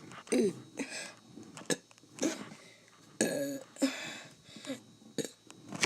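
A man burping over and over: a string of short burps, some falling in pitch, with a few sharp clicks between them.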